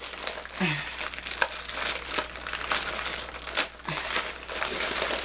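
Clear plastic bag crinkling and crackling as it is handled and pulled open by hand, with many short irregular crackles.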